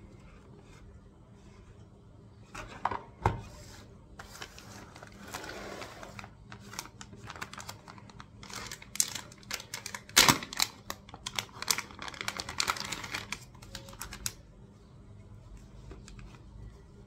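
Clear plastic product bags being handled and opened, a long run of crinkling and small clicks, with a couple of louder knocks about three and ten seconds in.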